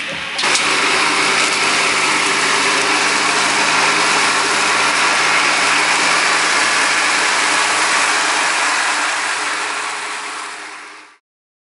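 Mitsubishi MT16D compact tractor's diesel engine running under load while its Komondor SFK-105 drum mower spins and cuts tall grass: a steady engine hum under a dense hiss. It gets louder about half a second in and fades out near the end.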